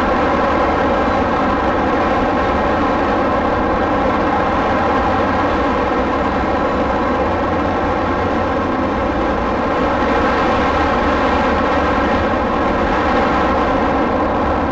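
Honda NC750X's parallel-twin engine droning steadily at an even cruising speed, with a low rumble beneath it.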